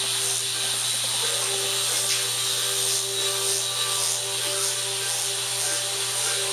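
Liposuction equipment running: the suction hisses steadily over a low motor hum, the hiss swelling and easing roughly once a second as the cannula is worked through the fat.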